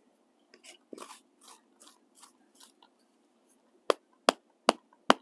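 A stake being hammered into root-filled soil beside bender board edging. First comes a run of faint, irregular crunching sounds, then, about four seconds in, sharp hammer blows begin at roughly two and a half a second.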